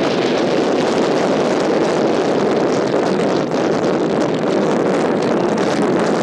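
Wind buffeting the camera microphone: a loud, steady rushing.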